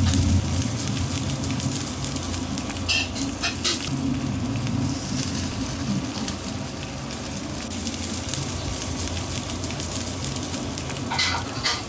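Marinated whole shrimp sizzling on the wire rack of an electric grill, a steady hiss over a low hum. A few short clicks cut in about three seconds in and again near the end, the ones near the end as metal tongs turn the shrimp on the rack.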